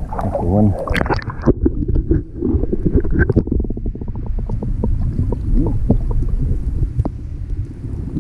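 Muffled sloshing and gurgling of water as an action camera dips in and out of shallow water, with a run of quick clicks and knocks about three seconds in. Flounder splashing in a gill net.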